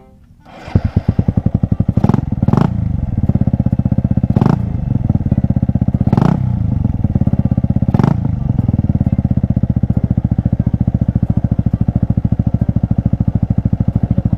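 A high-compression Suzuki Raider R150 single-cylinder motorcycle engine starts up under a second in. The throttle is blipped sharply about five times, then the engine settles into a quick, even idle. It is being run while the carburettor and CDI are tuned.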